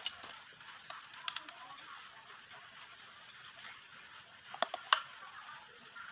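A few sharp clicks and taps over a faint background, a pair about a second and a half in and another pair near five seconds: a clamp meter and wiring being handled and fitted on the compressor's supply lead.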